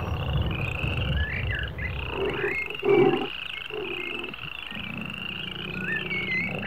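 A chorus of frogs trilling in repeated high pulses, with curling chirps between them. There is a low rumble during the first couple of seconds, and a louder, lower call about three seconds in.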